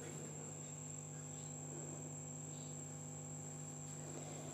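Faint steady background hum with a constant high-pitched whine over it. The soft kneading of the dough is barely audible.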